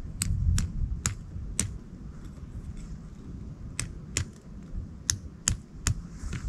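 Footsteps on a rocky mountain trail: sharp, irregular clicks and taps, about two a second in clusters, over a low rumble of wind and handling on the microphone.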